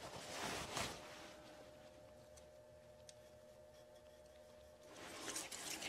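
A pencil scratching briefly on the maple platter as a mark is made, then near silence, with faint handling noise returning near the end.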